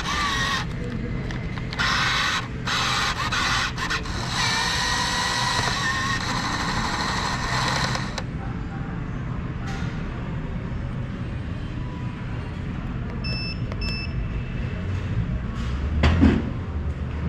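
Steady low background rumble, with a noisy stretch of clatter through the first half. Two short high electronic beeps come a little past the middle, and a thump sounds near the end.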